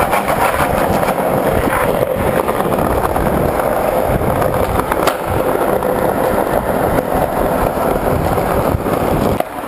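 Skateboard wheels rolling on a hard, smooth floor: a steady, loud rolling roar with a couple of brief clicks along the way.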